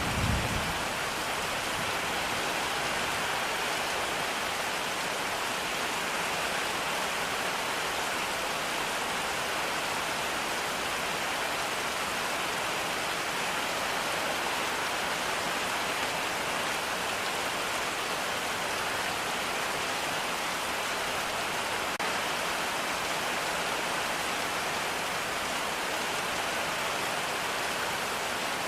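Steady heavy rain, an even hiss without a break. A low thunder rumble dies away in the first second.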